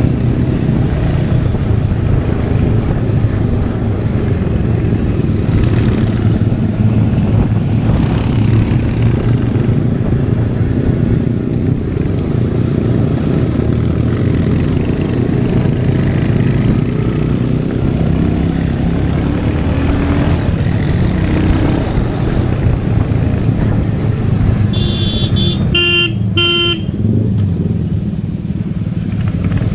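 Royal Enfield Hunter 350's single-cylinder engine and exhaust running steadily under way. A vehicle horn beeps briefly a few times about 25 seconds in.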